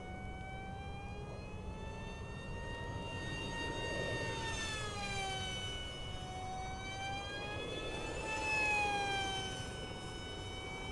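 Electric RC plane's motor and propeller whining as it flies overhead, the pitch rising and falling twice as it swings past and loudest near the end.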